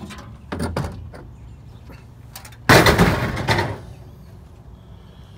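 Thin sheet-metal panel being handled and dropped onto a scrap pile: a knock about half a second in, then a loud metallic crash near the middle that rattles on for about a second.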